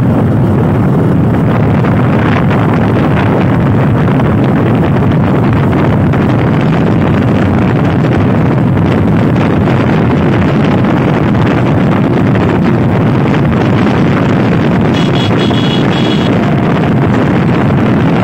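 Motorcycle riding at steady road speed: the engine runs evenly under heavy wind rush on the microphone.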